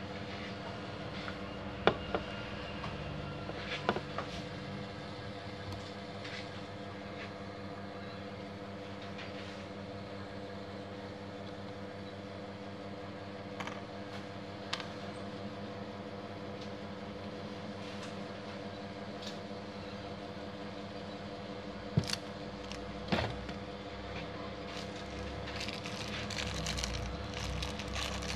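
Hands working on a plastic copier cartridge unit: a few sharp plastic clicks and knocks, the strongest two close together past the middle, over a steady machine hum. Near the end a small plastic bag crinkles as it is handled.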